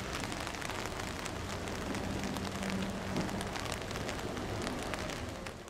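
Steady rain falling on a water surface, many small drops pattering into it, fading out near the end.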